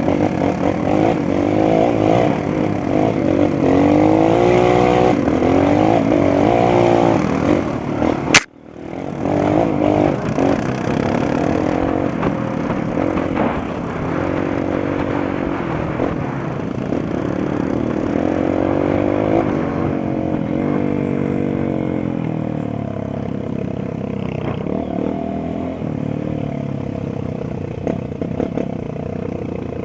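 Honda CRF230 trail motorcycle's single-cylinder four-stroke engine, its revs rising and falling as it is ridden off-road. A sharp click about eight seconds in, with the sound dipping briefly after it.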